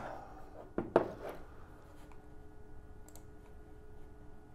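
A few clicks: two sharp ones about a second in, then faint ticks around three seconds, over a faint steady hum.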